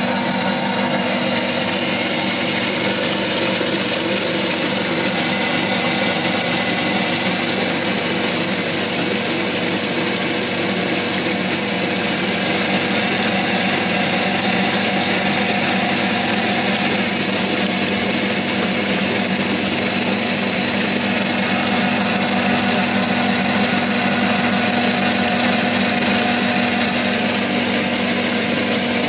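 Electric pump motor running steadily with a constant hum, while water jets from a hand-held spray wand into a metal bucket with a hiss.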